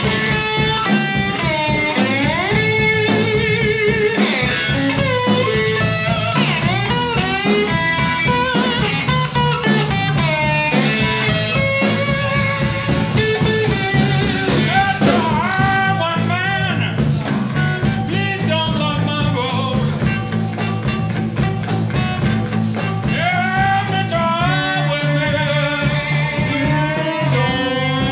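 Live blues band playing an instrumental stretch: an electric slide guitar solo with gliding, bending notes over bass and drum kit.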